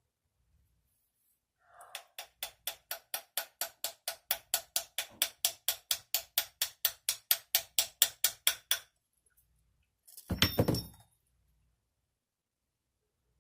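Light hammer taps on a punch, about four a second for some seven seconds and growing louder, each with a short metallic ring, driving the ejector roll pin into an AR-15 bolt. About ten seconds in, one louder metallic knock with a brief ring.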